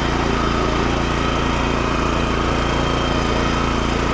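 BCS walk-behind rototiller's engine running steadily.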